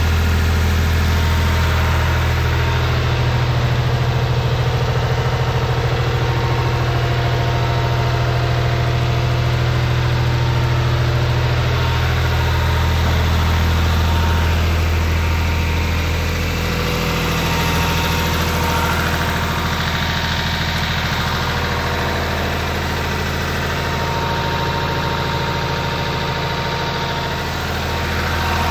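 Renault tractor's diesel engine idling steadily, a little quieter from about halfway through.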